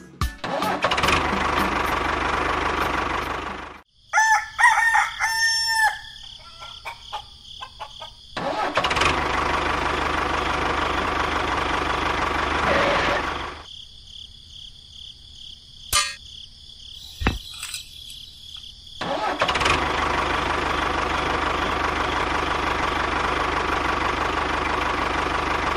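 A tractor engine running in three stretches of several seconds each, stopping abruptly between them. A rooster crows about four seconds in.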